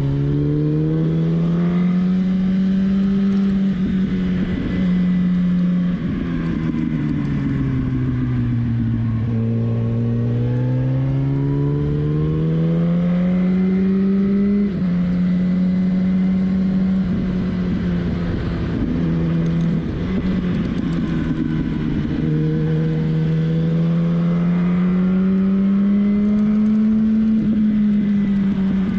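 Sport motorcycle engine under way, its pitch climbing as it pulls through the gears and dropping suddenly at each of several gear changes, over steady wind and road noise on the microphone.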